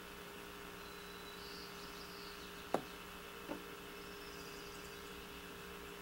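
Faint steady electrical hum and hiss, with faint high chirps about a second in and again near the end. A sharp click about halfway through, then a softer one just under a second later.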